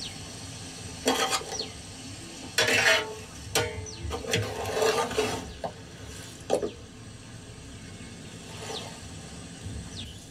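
A metal ladle scraping and clanking against a large metal pot while scooping chopped okra. There are several short scrapes and clanks over the first seven seconds.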